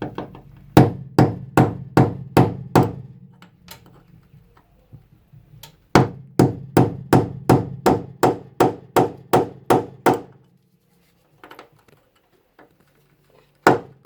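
Hammer striking an old screw used as a punch, metal on metal, driving a ground-down seat bolt through its floor plate. The blows come in three runs, about two or three a second, with pauses between; the bolt is stuck fast and takes many blows.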